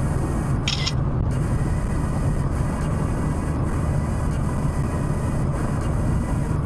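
Steady in-cabin road and engine noise of a Chevrolet Astra cruising at highway speed, a low rumble of engine and tyres. A brief high hiss sounds under a second in.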